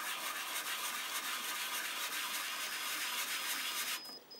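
Nexgen Lucky Bee clay-composite poker chips rubbed by hand on fine 180-grit sandpaper, a steady scratchy sanding that stops abruptly near the end. It is the chips' slick surface being sanded off.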